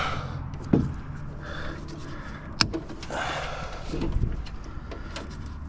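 Scrap being handled while an air conditioner is stripped: rustling and shifting of wiring and metal parts, with two sharp knocks, one near the start and one about halfway, over a steady low hum.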